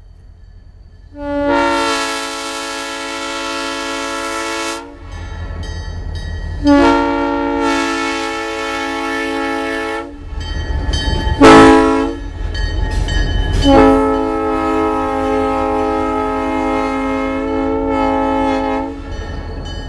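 Nathan M3 three-chime air horn blown in the grade-crossing pattern: two long blasts, one short and one long, each a steady multi-note chord.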